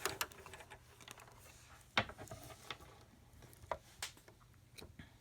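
A few light, scattered clicks and taps of small objects being handled at a sewing machine, with the machine itself not running.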